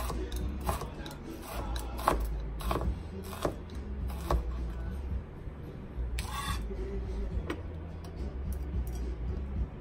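Chef's knife dicing orange bell pepper on a plastic cutting mat: a string of uneven knocks, one or two a second, then a brief scrape about six seconds in as the diced pieces are gathered on the blade.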